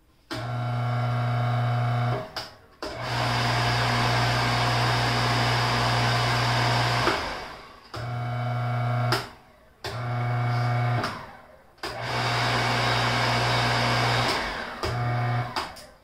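Three-roller shaper power feeder's electric motor switched on and off six times, each run a steady hum of one to four seconds that winds down when it is switched off. It is being test-run on a newly fitted 15 amp, 220 V plug, and it runs, so the plug works.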